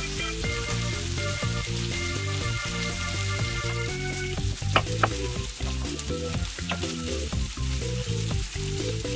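Bacon frying in lard in a pan, a steady sizzle. A few sharp knife strokes on a wooden cutting board come about halfway through as an onion is cut, over a light background melody.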